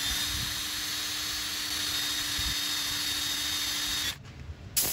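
Electric drill running steadily in reverse with a left-handed drill bit, drilling out a seized broken bolt in a Kawasaki Z1-R's aluminium engine case. The steady whine stops about four seconds in, followed by a short second burst just before the end.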